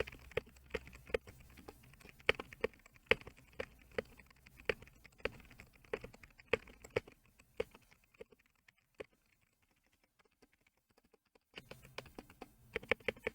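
Typing on a GammaKay K87 mechanical keyboard fitted with translucent pudding keycaps: quick runs of sharp key clacks, several a second, thinning to a few isolated presses for a few seconds before a fast burst near the end. A noise gate cuts the background hum between bursts of typing, so the sound drops out to near silence in the gaps.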